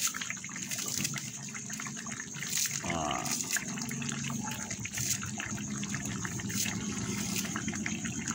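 Thick spice sauce bubbling and popping in a wok as it simmers, a dense run of small irregular plops and crackles.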